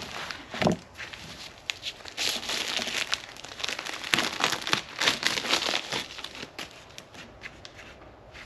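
Close handling noise: crinkling and rustling, busiest in the middle seconds and thinning toward the end, with a couple of sharper knocks in the first second.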